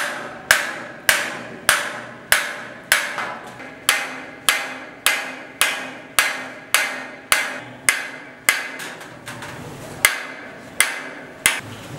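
Small hammer tapping a nail used as a punch into a thin metal tray, chasing lines into the design: sharp metallic taps at a steady pace a little under two a second, each with a short ring, a few lighter, less regular taps near the end.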